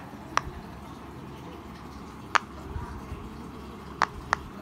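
Bubbles of a unicorn silicone pop-it fidget toy being pressed, giving single sharp pops one to two seconds apart, with two close together near the end.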